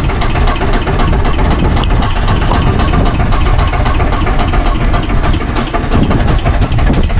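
Fishing boat's engine running steadily and loud, close by.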